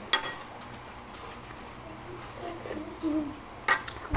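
Eating utensils clinking against dishes: two sharp clinks, one just after the start with a short ring and one near the end.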